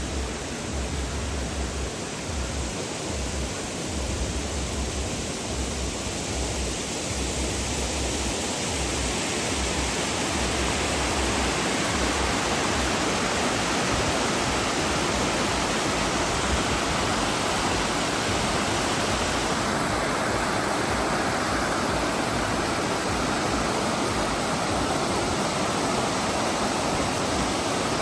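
Waterfall: a steady rush of falling water, with an intermittent low rumble through roughly the first half.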